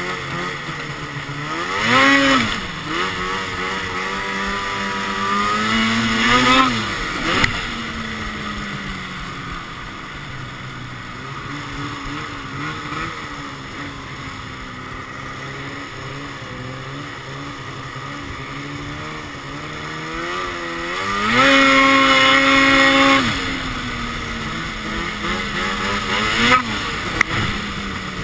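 A 2012 Arctic Cat XF 800 snowmobile's two-stroke engine, fitted with a Sno Stuff high-performance silencer, running under a rider's throttle. It revs up briefly about two seconds in, climbs steadily in pitch around five to seven seconds, and holds a high, loud rev for a couple of seconds past the twenty-second mark, with another short blip near the end. Between these it runs at lower revs.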